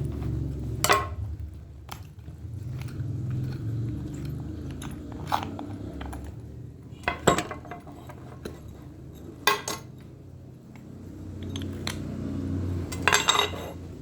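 Metal parts of a motorcycle starter motor knocking and clinking as it is opened up by hand: about five sharp knocks spread out over a low steady hum.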